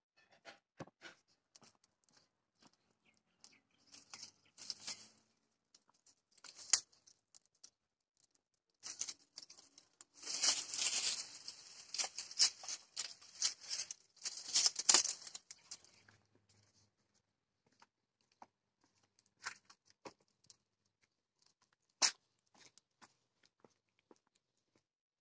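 Dry brushwood crackling and rustling at a wood-fired clay tandoor, in loose bursts that are loudest around the middle, with scattered sharp clicks and one sharp crack near the end.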